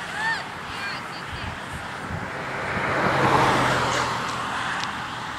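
A car driving past on the road: its tyre and engine noise swells to a peak about three seconds in and then fades away, with no horn.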